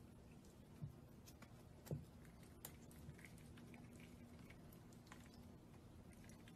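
Faint, irregular little clicks and taps of a prairie dog picking up and nibbling food on a wooden floor, with two slightly louder clicks about one and two seconds in, over quiet room tone.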